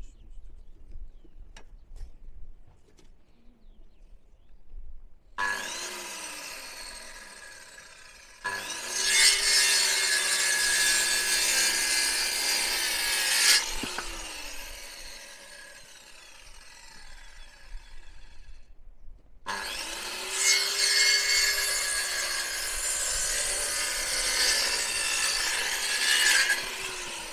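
Electric power saw cutting wood in two long runs, with a short stop between them; the motor's whine can be heard falling as it runs down after the first cut.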